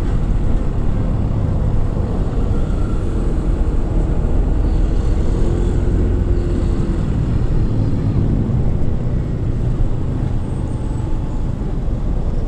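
Steady wind and road noise with a motorcycle's engine running underneath, heavy in the low end, picked up by a GoPro Hero4's external mic while riding. A faint rising engine note comes in about halfway through.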